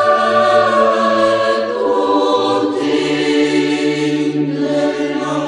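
Church choir singing a slow Orthodox hymn in long held chords, in the style of Romanian Orthodox church singing. The low voices step up to a higher note about two and a half seconds in.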